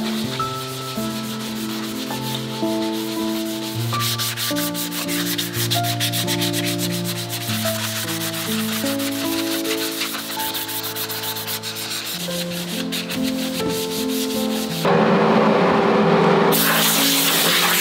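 Rapid hand-sanding strokes of an abrasive pad rubbing over a wooden cuckoo-clock housing. About 15 s in, a loud hiss of compressed air starts suddenly, blowing the sanding dust off; background music plays throughout.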